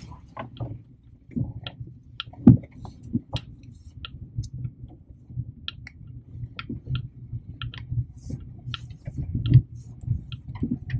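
Car driving over a rough unpaved gravel road, heard from inside the cabin: a steady low rumble with irregular clicks and knocks.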